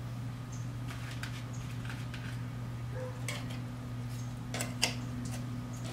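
Light clicks and scrapes of a metal utensil against a metal muffin tin as smoked bacon bowls are pried loose, over a steady low hum. The sharpest clicks come about three and a half and five seconds in.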